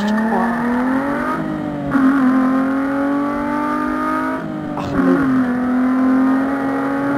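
Car engine accelerating through the gears. Its pitch climbs steadily and drops back at gear changes about two and five seconds in.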